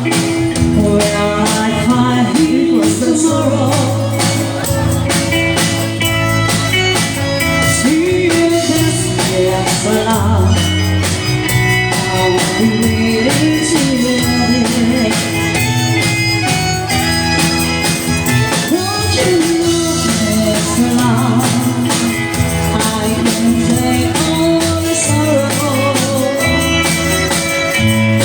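Live band music: a balse dance number with steady bass notes and a melody line that bends in pitch, played without a break.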